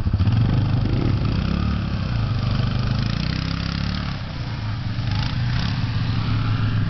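Yamaha Wolverine 4x4 quad's engine revving under load as the quad churns through shallow water and climbs out up a sandy bank, with the pitch rising and falling as the throttle changes.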